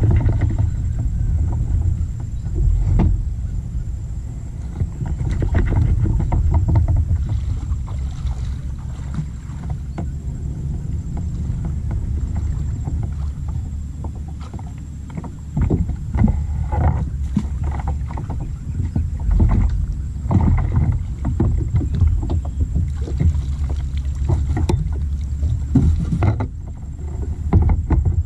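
Fishing kayak afloat, with water lapping and splashing against its plastic hull and irregular knocks on the hull over a steady low rumble. The knocks come thicker from about halfway through.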